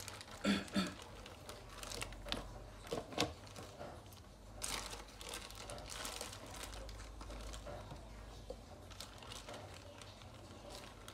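Crinkling and rustling handling noises with a few sharp clicks as pickled rau móp (Lasia spinosa) stems are added to and moved about in a plastic colander, over a faint low hum.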